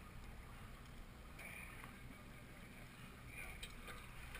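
Faint, steady wind and sea noise from the deck of an offshore fishing boat, with a low rumble underneath.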